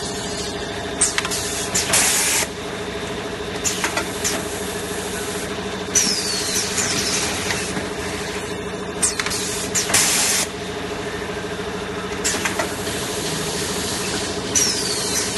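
Semi-automatic kitchen towel roll packing machine running, with a steady mechanical hum and scattered clicks. Short bursts of hiss come twice, and a high falling squeal sounds twice, about eight seconds apart.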